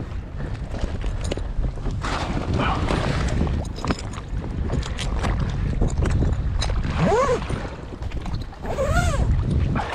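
Wind buffeting the microphone and sea water around a fishing kayak, with the rustle, clicks and knocks of a fish bag being handled. A person's voice is heard briefly twice near the end.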